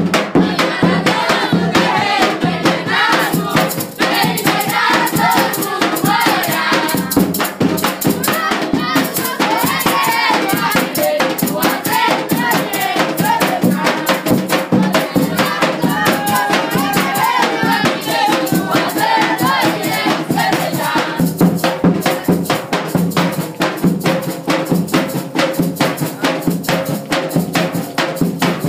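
Reisado folk music: group singing over a fast beat of shaken rattles and drum. The voices drop away about twenty seconds in, leaving mostly the percussion.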